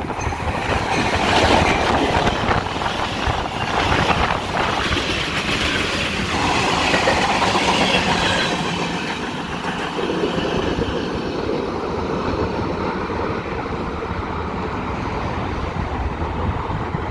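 A freight train of covered hopper cars, led by a diesel locomotive, passing close at speed: a dense rumble and clatter of steel wheels on the rails. It is loudest and brightest over the first half, then settles to a lower, duller rumble as the train moves away.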